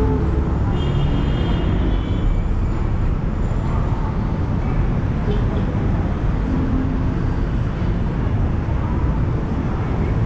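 Steady rumble of busy city road traffic: engines and tyres of passing vehicles, with a brief high-pitched tone about a second in.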